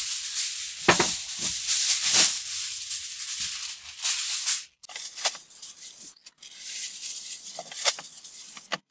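Thin aluminium grill foil being pulled off its roll with a steady crinkly hiss for about five seconds. After a short pause, sheets are torn off and handled, crackling and crinkling in separate sharp bursts.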